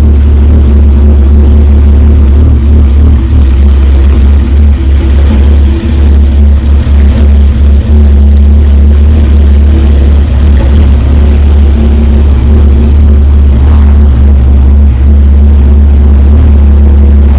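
Porsche 911 Carrera S (991) flat-six idling steadily through a freshly installed Sharkwerks race exhaust, shortly after a cold start, with a loud, deep, even drone.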